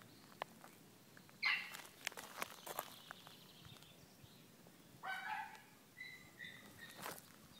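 Light footsteps crunching on gravel, with a few short high-pitched animal calls: a loud one about a second and a half in, another about five seconds in, then brief high notes.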